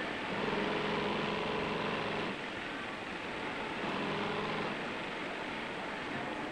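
Industrial sewing machines running in a garment workroom: a steady mechanical clatter and whir, with a machine's humming tone rising out of it twice as it sews a run, once from about half a second to two seconds in and again briefly around four seconds.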